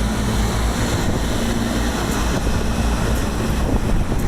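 Steady, loud running rumble of rooftop HVAC equipment, with a low hum, mixed with wind on the microphone.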